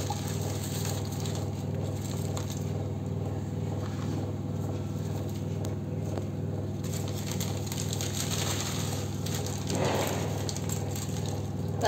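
Steady electric motor hum with a fast pulsing beat, under light rustling of a plastic packet and dry vermicelli being handled. There is a short louder rustle about ten seconds in.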